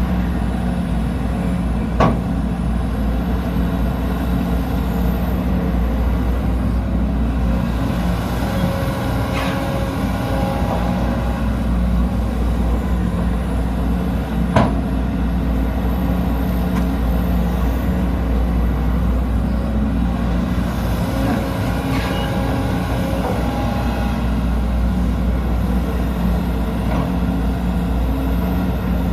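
Sumitomo SH210 excavator's diesel engine running steadily under work, with a higher tone coming in twice for a few seconds. Two sharp knocks, about two seconds in and near the middle.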